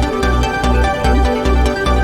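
Electronic dance music with a steady thumping bass beat, about two beats a second, under sustained synth chords.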